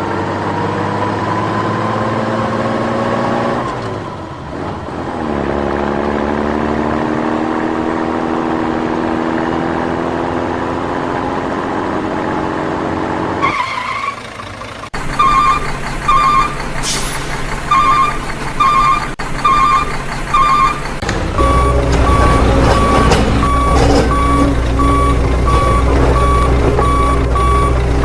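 A truck engine's whine, rising in pitch, dipping briefly and climbing again. About halfway in it gives way to a truck reversing beeper, first in short groups of beeps and then beeping steadily over a low engine rumble.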